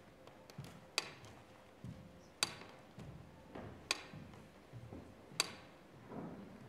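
Slow, evenly spaced ticking: single sharp ticks about every one and a half seconds, like a slow clock marking time, with softer low thuds between them.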